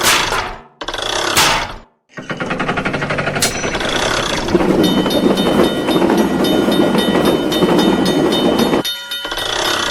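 Railroad crossing warning bell ringing fast and unevenly, mixed with the running rumble of a passing train. Two short noisy bursts come first, then a rapid, even ticking, which turns into steady high ringing over a rumble, with a brief cut near the end.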